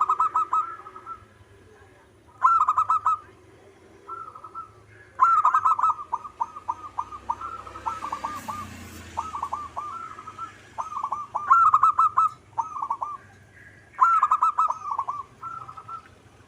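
Zebra dove singing its staccato cooing song. Quick runs of short repeated notes come in phrases of one to two seconds, about five phrases spaced a few seconds apart.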